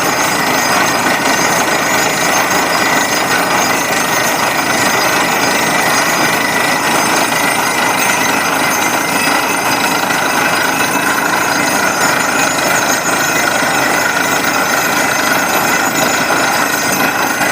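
Borewell drilling rig at work: a steady, loud din of percussive hammering over a running engine, without pause.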